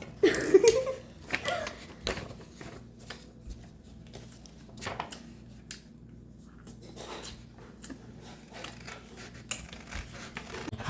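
Sticky monkey bread being pulled apart and eaten: scattered small clicks and rustles of handling. A short vocal sound comes at the start.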